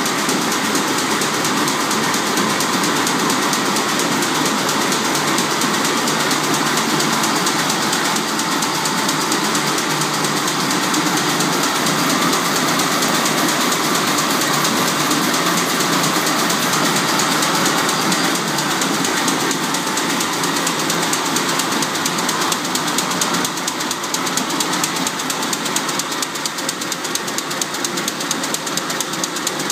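Stäubli-type electronic jacquard machine running at a steady speed: its crank-driven knives and hooks cycle up and down with a dense, even mechanical clatter.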